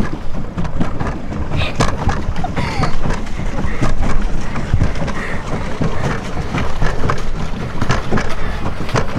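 Wind rumbling on the microphone over water splashing and sloshing around a pedal boat, with scattered small splashes and knocks throughout.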